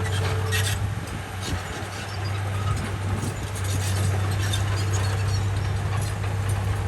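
Komatsu bulldozer's diesel engine running steadily, with a faint thin whine that comes and goes above it.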